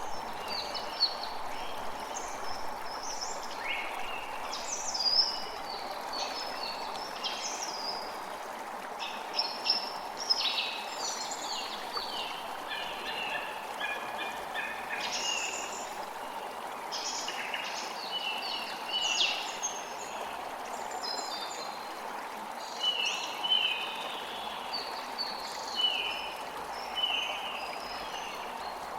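Several birds chirping and singing over a steady rush of running water. Near the end, one bird repeats a short falling note over and over.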